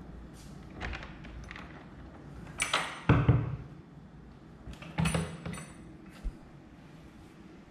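Old wooden double door with an iron latch being unlatched and pulled open: small clicks of the latch and handle, then a scrape and a heavy thud about three seconds in, the loudest sound, and another metallic rattle about five seconds in.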